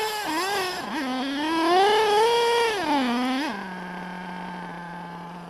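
HPI Trophy Truggy 4.6's small nitro engine revving, climbing to its highest revs about two seconds in, then falling and settling into a steady idle after about three and a half seconds.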